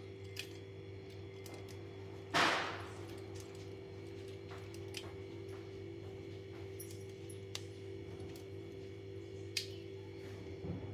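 Light clicks of hands handling a plastic switch-socket plate and its wires over a steady low hum, with one sharp, loud crack about two and a half seconds in.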